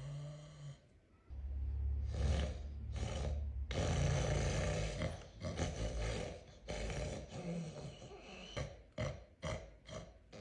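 A person snoring. A long low snore starts about a second in, then more snoring breaths follow with short pauses between them, turning choppier near the end.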